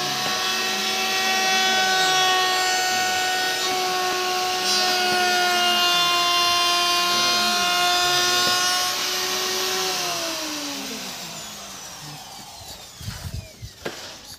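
A high-speed electric power tool motor running steadily with a high whine, then switched off about ten seconds in and winding down with falling pitch. A few knocks follow near the end.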